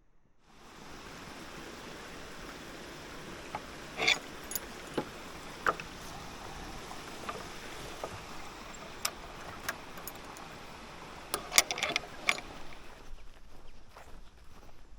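Steady rushing water, fading in about half a second in and easing off near the end, with scattered sharp clicks and taps over it.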